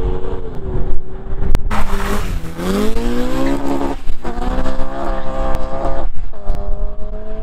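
Cars accelerating hard away one after another, engines revving. The pitch climbs through each gear and drops back at the changes, three times.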